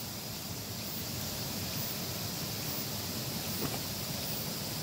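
Steady outdoor background hiss, like wind on the microphone, with one faint click a little before the end.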